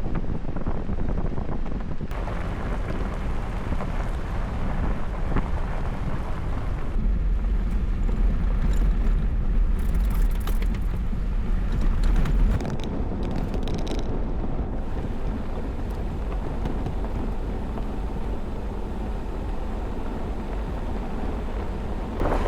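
Off-road vehicle driving along a gravel trail: a steady low rumble of engine and tyres with wind buffeting the microphone, heavier for a few seconds in the middle.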